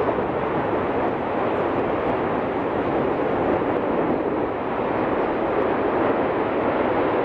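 Erupting volcanic vent on La Palma making a loud, steady rushing noise like a jet engine as lava fountains and gas jet from it.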